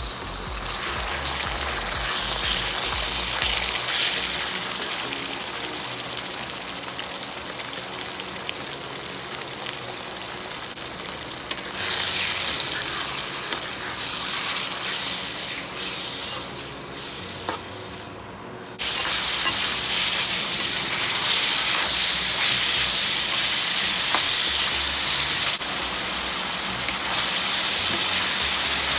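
Raw chicken pieces sizzling in hot oil and garlic in a wok, turned over with a metal spatula. The sizzle fades briefly about two-thirds of the way through, then comes back louder.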